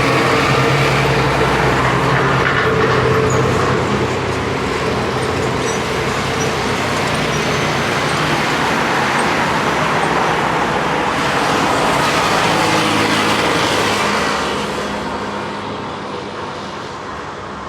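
Road traffic passing: car and truck engines running over a steady hiss of tyre noise, with a heavier engine hum in the first part. The traffic eases and grows quieter near the end.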